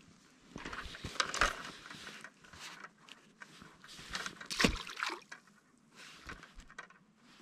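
Water splashing and sloshing in irregular bursts, mixed with knocks and rustles of handling. The loudest bursts come about a second and a half in and again about four and a half seconds in.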